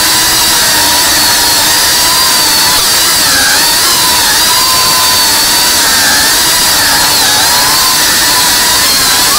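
FPV quadcopter's brushless motors and propellers whining steadily, the pitch wavering up and down as the throttle changes.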